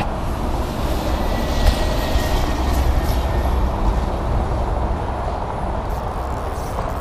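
Steady rumble of road traffic on a highway bridge.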